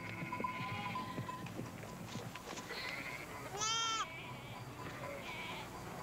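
A lamb bleats once, loudly, about three and a half seconds in, with fainter sheep bleats around it over soft background music.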